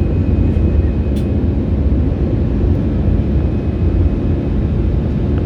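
Steady engine and airflow rumble heard inside an airliner's passenger cabin during takeoff, deep and unbroken.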